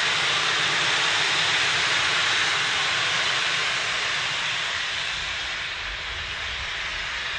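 Steam locomotive blowing off steam: a loud, steady hiss that eases a little after about three seconds, with a low rumble growing near the end.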